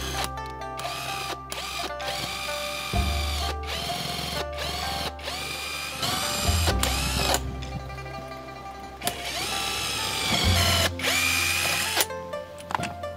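Power drill run in about ten short bursts, each whine rising as the trigger is squeezed and falling away as it is let go. Background music with a steady bass line plays under it.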